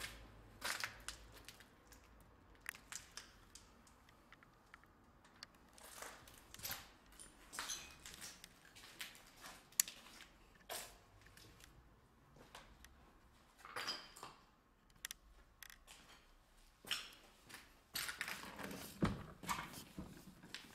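Footsteps crunching and scuffing on loose rubble and plaster debris, as irregular quiet clicks and grit crunches in a bare room. Near the end comes a heavier knock and scrape as a metal door is pushed open by hand.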